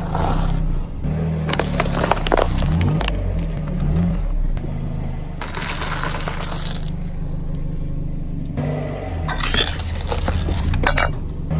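Car tyre rolling slowly over crunchy objects and crushing them, with crackling, snapping and scraping at irregular moments and a dense run of crackles near the end. The car's engine idles steadily underneath.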